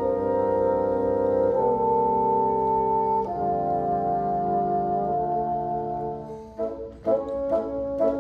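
Bassoon quartet playing slow held chords that change twice, the last one fading out about six and a half seconds in. After a brief dip, short detached notes start about seven seconds in.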